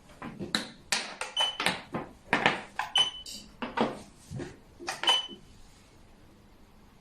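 Xiangqi pieces clacking against each other and on the board: a quick irregular run of about fifteen sharp clacks, some with a brief ringing, stopping about five seconds in.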